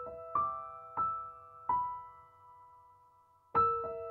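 Slow background piano music: single notes and chords struck about every half second to second, each ringing on and fading.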